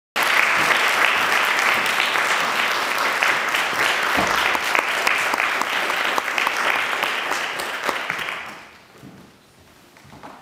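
Audience applauding, a dense patter of clapping that fades away about eight and a half seconds in.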